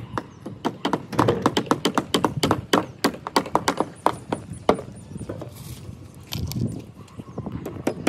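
Hammer driving nails into wooden shuttering planks of roof-slab formwork: a fast run of sharp knocks for the first few seconds, then a pause with only occasional taps, and more knocks near the end.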